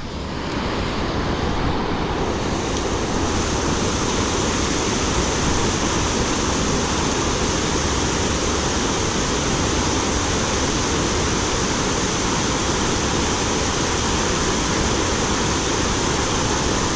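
Steady rushing of flowing creek water, an even noise that swells over the first couple of seconds and then holds level.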